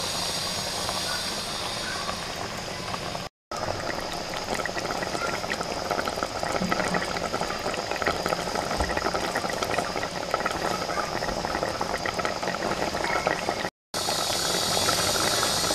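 Gongura chicken curry simmering in a pot: a steady hiss of steam with a dense crackle of small bubbles popping in the thick gravy. The sound cuts out abruptly twice for a moment.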